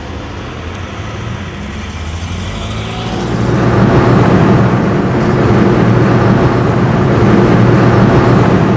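Car engine and tyre noise heard from inside the cabin while driving, a steady low hum under road rush that grows louder about three seconds in.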